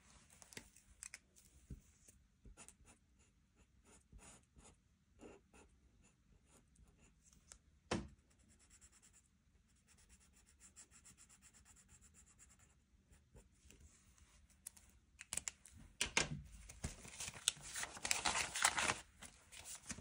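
Marker scratching on a paper card as small grid squares are coloured in, with scattered light clicks and taps and one sharper click about eight seconds in. Near the end there is louder paper rustling and handling.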